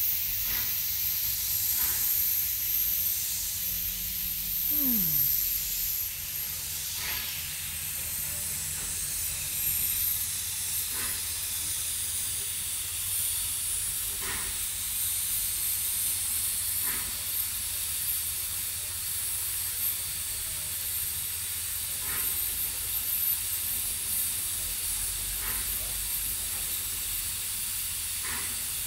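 Standing steam locomotive hissing steadily as steam escapes, with a soft puff every few seconds.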